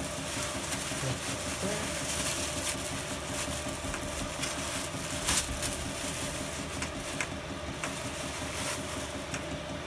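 Clear plastic wrapping crinkling and rustling as it is pulled off a motorcycle engine, with many small crackles and one sharper one about halfway through, over a steady low hum.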